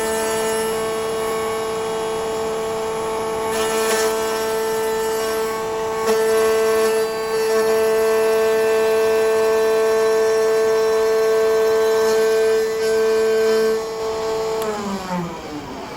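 Electric power tool motor running at a steady, high-pitched speed, then switched off near the end, its whine falling in pitch as it winds down.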